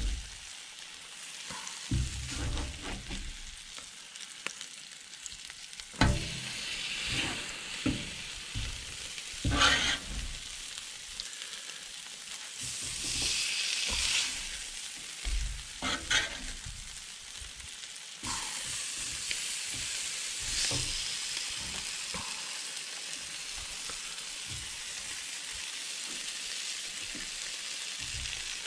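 Steak strips and peppers sizzling on a 22-inch Blackstone flat-top griddle. A metal spatula scrapes and clacks against the steel plate now and then through the first half, and the sizzle swells briefly about two-thirds of the way through.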